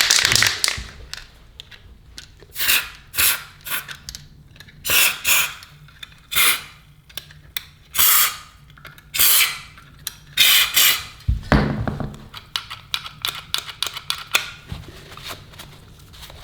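Short hissing squirts from an aerosol can of white lithium grease sprayed into a Yale lock's latch mechanism, about ten separate bursts, followed near the end by a run of small clicks and rattles from the lock parts.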